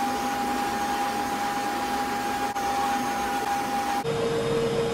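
Wall-mounted hotel hair dryer on a hose, running: a steady rush of air with a motor whine. About four seconds in, the whine steps down to a lower pitch.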